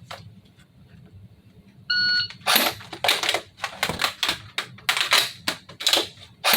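Shot timer's start beep about two seconds in, then a quick run of sharp clacks and rattles as an airsoft FN P90 replica is handled and reloaded for a timed drill, ending with a sharp crack near the end.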